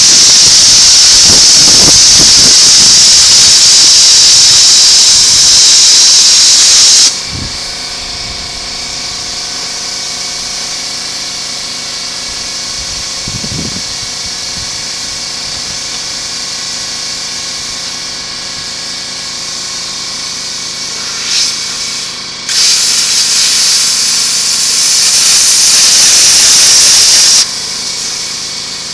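Steel shell of a scroll compressor being cut: a loud, steady hiss for about seven seconds, which stops abruptly, then starts again near the end for about five seconds. A quieter steady machine hum runs between the two cuts.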